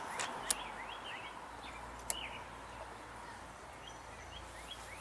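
Small birds chirping with many short, quick rising calls over faint outdoor background noise, with two sharp clicks about half a second and two seconds in.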